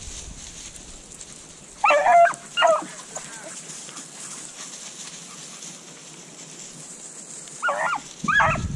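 Rabbit-hunting dogs barking on the chase: two short barks about two seconds in, and two more near the end.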